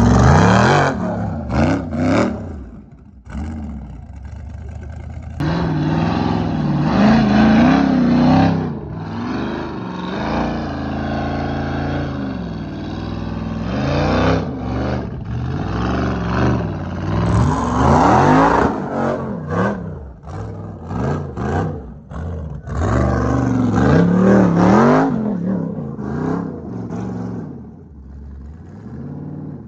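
Rock buggy's engine revving hard in repeated bursts as it climbs over rock and dirt. The pitch rises and falls again and again, with a run of quick throttle blips about two-thirds of the way through.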